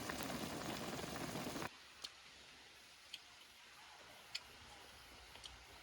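A steady background noise cuts off abruptly about two seconds in, leaving a quiet stretch broken by single sharp ticks about once a second.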